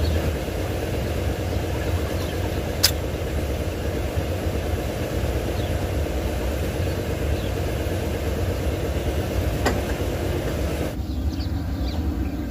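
An engine idling steadily nearby, with a sharp click about three seconds in and a fainter one near ten seconds. The clicks come from an injector being worked out of an open diesel cylinder head.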